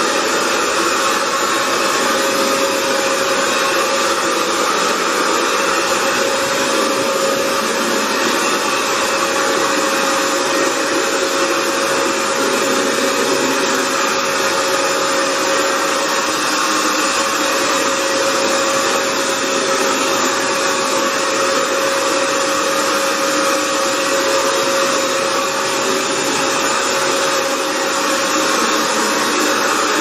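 Hoover FloorMate Edge hard-floor wet cleaner running steadily: a constant motor whine over the rush of its suction.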